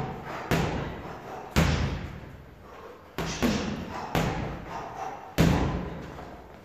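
Boxing gloves punching a heavy bag: five hard blows, spaced about a second apart with a longer gap in the middle, each dying away quickly. The loudest come about a second and a half in and again near the end.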